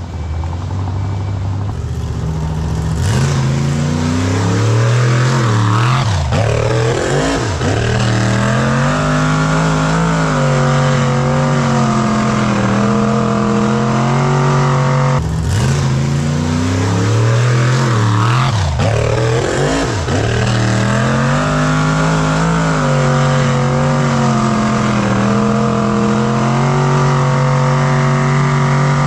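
High-horsepower off-road hill-climb vehicle's engine running hard, its revs rising and falling, with two sudden surges in pitch.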